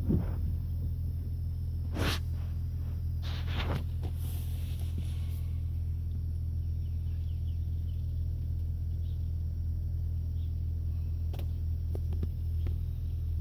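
Steady low rumble of a car running, heard inside the cabin. A few light clicks and knocks come in the first four seconds.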